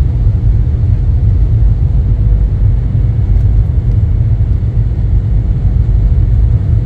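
Airliner cabin noise: a steady, loud low rumble of the jet engines and airflow heard from inside the cabin, with a faint steady hum above it.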